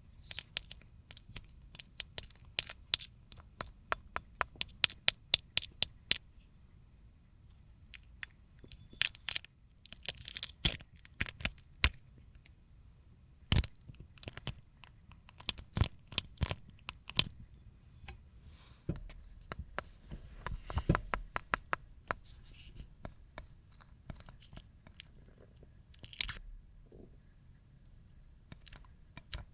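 A thin film of dried slime being peeled off a plate: quick crackles and sharp clicks as it tears and lifts away, in clusters with short pauses between.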